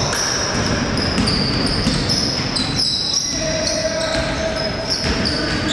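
Basketball being played in a gym: the ball bouncing on the court and high, short squeaks from shoes on the floor, over the steady noise of a large hall.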